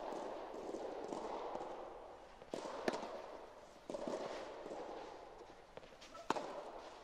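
Soft tennis rally: the rubber ball pops sharply off the rackets about every three seconds, and each hit is followed by a ringing echo that dies away, along with the players' shoes scuffing on the court.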